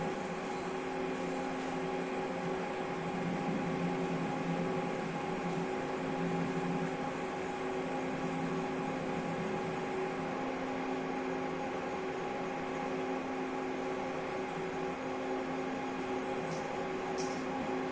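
Steady machine hum made of several held tones over an even hiss, unchanging throughout.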